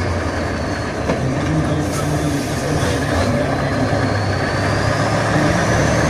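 Tatra 815 6x6 trial truck's diesel engine running steadily under load as the truck crawls over a steep dirt mound, with a faint high whine that dips and then rises in pitch.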